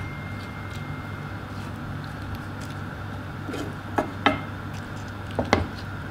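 Wooden spoon knocking against a frying pan of raw shrimp: four sharp knocks in pairs in the second half, over a steady low hum.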